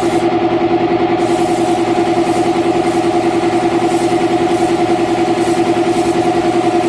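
An air compressor runs steadily with a fast, pulsing hum while a paint spray gun hisses. The hiss cuts out just after the start and comes back about a second in.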